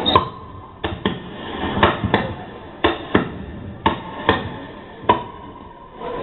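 Sharp percussive hits from a dance track, mostly in pairs about a third of a second apart, coming roughly once a second over a quiet background.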